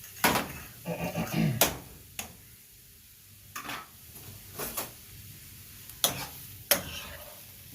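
Stirring utensil knocking and scraping against a frying pan as vegetables are sautéed in butter: several sharp clacks spread through, with a brief squeaky scrape about a second in.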